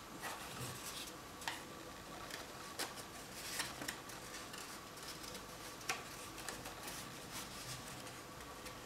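Folded paper petals rustling and crinkling as hands fit the pleated pieces together, with a few sharp paper clicks, over a faint steady hum.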